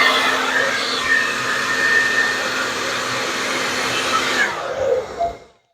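Blow dryer running steadily. Near the end it is switched off, and its hum slides down in pitch as it winds down to a stop.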